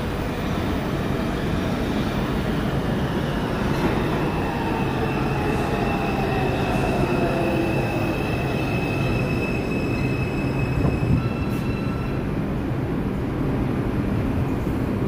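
R142 subway train pulling into the station and braking to a stop, over a steady heavy rumble. Its motor whine falls in pitch as it slows, and a high steady brake squeal sets in about six seconds in and cuts off as the train halts near twelve seconds.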